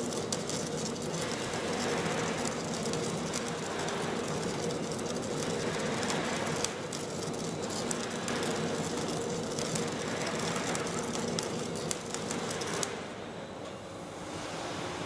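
Schlatter flash butt welding machine flashing a rail joint: a dense, continuous crackling and spitting over a steady hum. Near the end it turns quieter and duller.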